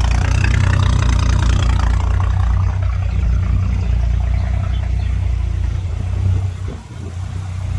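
BMW E38 750iL's V12 engine idling unevenly while warming up after sitting neglected, with a steady low rumble and a brief dip in level about seven seconds in. The owner hears one bank running louder and rich and the other lean, though he is not sure whether it needs fresh gas or just needs to idle.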